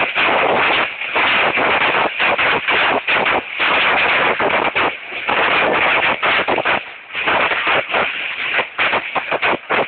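Hailstorm: hailstones pelting down in a dense, irregular clatter, with many sharp individual impacts on hard surfaces.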